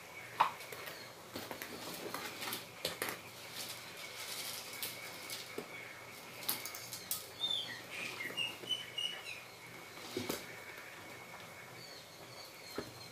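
Chocolate cake batter being stirred by hand in a plastic bowl: irregular scrapes and knocks of the utensil against the bowl. A few short high chirps come in about seven to nine seconds in.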